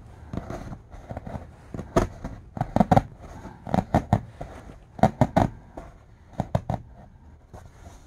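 A knife blade cutting through taut canvas tent fabric in short strokes, each stroke giving a sharp snap as the fibres part, coming irregularly in quick bunches of two to four.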